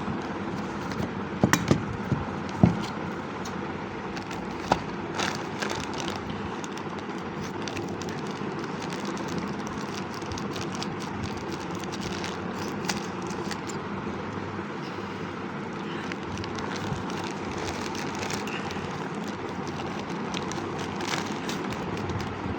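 A cardboard product box being opened by hand: scattered clicks, taps and rustles, several sharp ones in the first few seconds, over a steady background noise.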